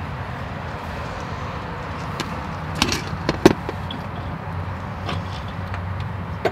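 A few sharp clinks of hand tools and parts against the engine, a quick cluster near the middle and one more at the end, over a steady low hum.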